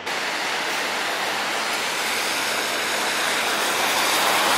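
Steady hiss of rain and car tyres on a wet city street, growing slightly louder.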